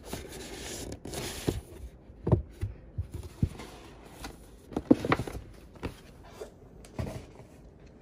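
Paper gift bag and the boxed item inside it being handled: paper rustling for the first second or so, then scattered light knocks and clicks, the loudest a little after five seconds in.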